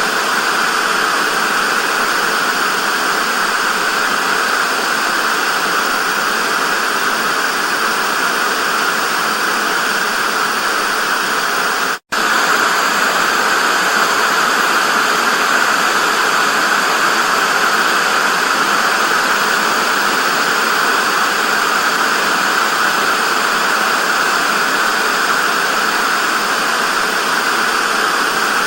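Television static: a steady, loud hiss from an untuned TV, with a brief dropout to silence about twelve seconds in.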